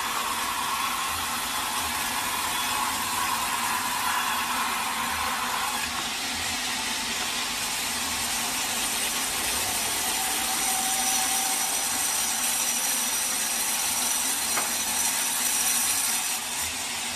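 Sawmill saw cutting through a teak log: a steady sawing noise. A mid-pitched tone drops out about six seconds in, and a high thin whine joins from about ten to sixteen seconds.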